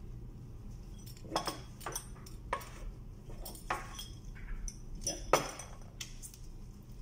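Aluminium lamp housing and small metal parts being handled on a countertop: about six separate sharp metallic clinks and knocks, the loudest a little past five seconds in.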